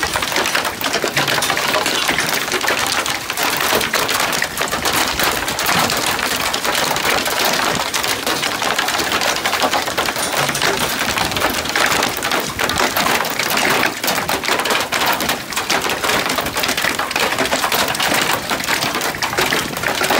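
Golf-ball-sized hail pelting a wooden deck and the gravel ground in a dense, continuous clatter of countless impacts.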